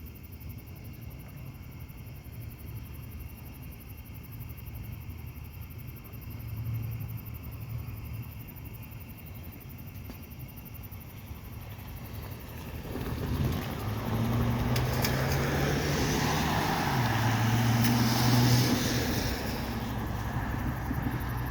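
A road vehicle going by: a low steady rumble, then engine and tyre noise building up over the last third, loudest shortly before it eases off near the end.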